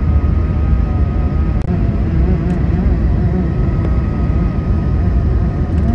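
Airliner cabin noise in flight: a loud, steady low rumble with a thin, steady whine above it.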